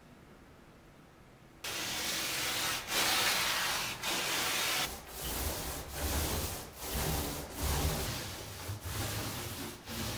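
Small paint roller rolling primer onto a fiberglass shower surround: a rubbing swish in repeated strokes, roughly one a second, starting about a second and a half in.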